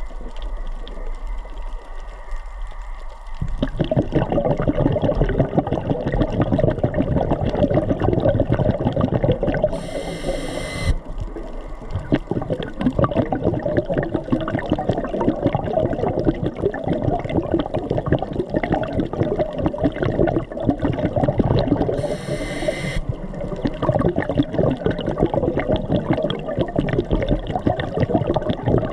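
Underwater ambience picked up through a submerged camera: dense, irregular crackling and rushing water noise that swells up about three and a half seconds in. Two brief hissing bursts come about ten and twenty-two seconds in.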